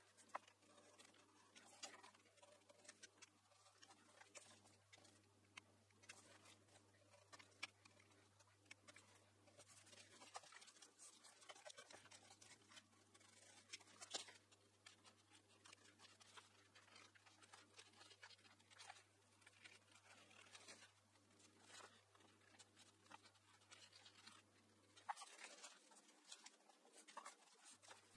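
Very faint scratching and light clicks of wallpaper being pressed down by hand and trimmed along a drawer edge with a snap-off craft knife.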